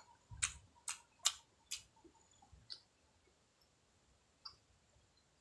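A person eating: faint, sharp mouth clicks and lip smacks, four quick ones in the first two seconds, then a few sparser ones.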